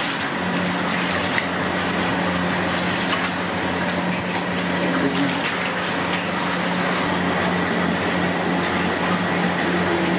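Steady rush of running water over a constant low hum, like a pump or motor running.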